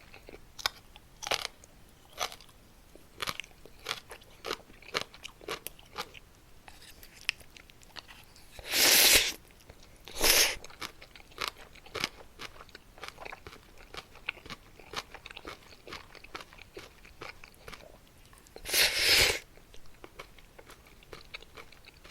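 Close-miked crunching and chewing of Muktaekkang, a crisp puffed snack, as quick irregular crunches. Three louder, longer crunching bursts come about 9, 10 and 19 seconds in.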